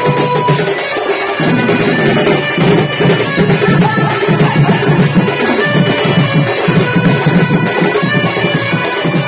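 Loud live folk-band music through horn loudspeakers: a fast rhythm on a set of tall hand drums under a sustained melody line.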